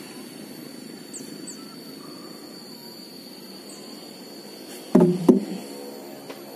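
Sawmill saw-table machinery running steadily, with two loud knocks close together about five seconds in.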